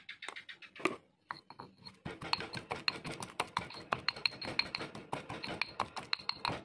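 Stone pestle pounding and grinding wet spice paste in a stone mortar. A few scattered stone-on-stone knocks come first, then from about two seconds in a quick steady run of strikes.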